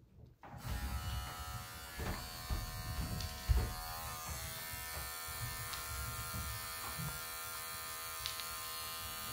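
Electric hair clippers switched on about half a second in and buzzing steadily. A few soft thumps sound under the buzz in the first few seconds.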